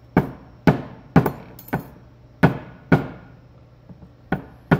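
Claw hammer striking a rock-hard egg on a benchtop: about eight sharp blows at an uneven pace, each ringing briefly. The egg holds without opening.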